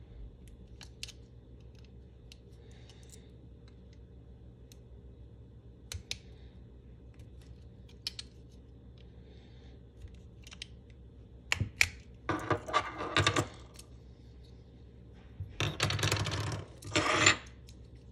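Plastic shell of a Honda keyless remote being pried apart with its metal key blade. Scattered small clicks, then two bursts of rapid clicking and scraping, about twelve and sixteen seconds in, as the case pops open.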